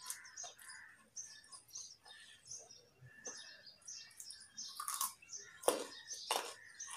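A raw carrot being bitten and chewed, with a few sharp crunches in the second half, the loudest just before six seconds in. Small birds chirp in the background throughout.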